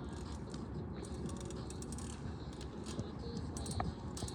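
BMX flatland bike's rear hub ratchet clicking in short, irregular runs over a steady low background noise.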